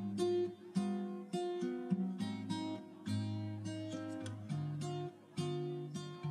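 Background music: acoustic guitar playing a run of plucked and strummed notes over a moving bass line.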